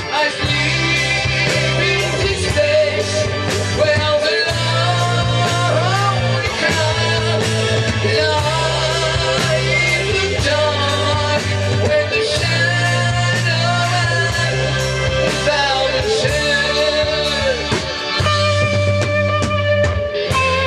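Rock music: an instrumental passage with a wavering lead electric guitar over bass guitar and drums.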